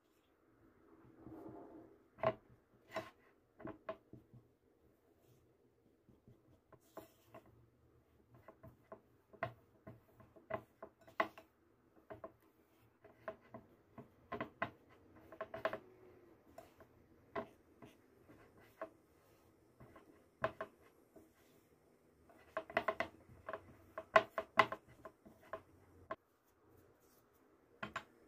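Silicone spatula stirring and scraping flour and cocoa into butter in a glass mixing bowl: irregular soft taps and scrapes against the glass, with a denser run of clicks about 23 seconds in.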